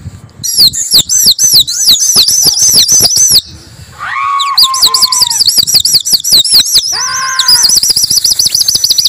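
Shrill warbling whistle of rapid rising-and-falling chirps, about five a second, in two long runs split by a short break a little over three seconds in. Lower, drooping whistled calls come in between. It is the whistling pigeon flyers use to work a flock circling overhead.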